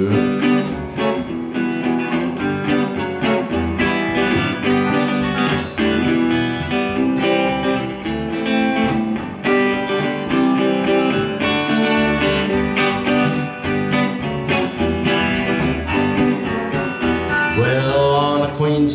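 A small live band playing the instrumental intro of an upbeat country-style song on guitars and bass, with a steady strummed rhythm. A man's singing voice comes in near the end.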